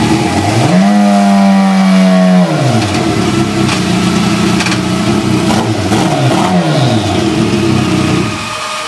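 Turbocharged Suzuki Hayabusa inline-four drag bike engine revved on a dyno: it climbs to a high held pitch for about a second and a half, drops, then is blipped up and down several more times before falling back near the end. The owner says it is only running on three cylinders because of an electrical problem.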